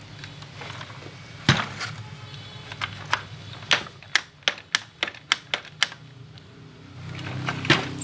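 Sharp plastic clicks and knocks from a baby walker's plastic body and metal frame being handled. One loud knock comes about a second and a half in, then a rapid run of about nine clicks in the middle, and more knocks near the end.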